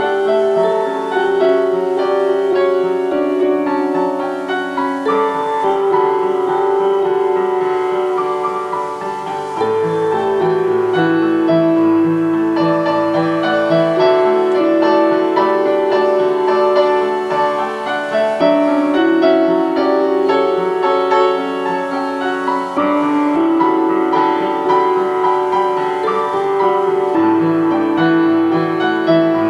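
Instrumental piano piece with string accompaniment, long held notes under chords that change every second or two.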